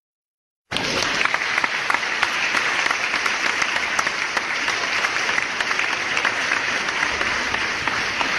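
Crowd applauding, cutting in suddenly out of silence about a second in and then holding at an even level.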